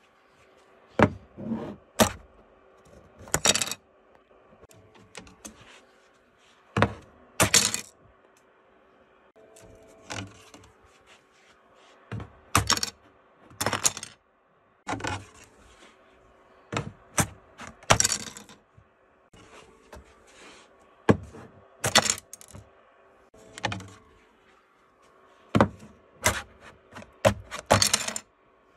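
Irregular sharp snaps, clicks and clatters every second or two as printed plastic parts are flexed off a Creality 3D printer's removable spring-steel build plate and land on a wooden desk, the plate itself clanking as it is handled. A faint steady hum runs underneath.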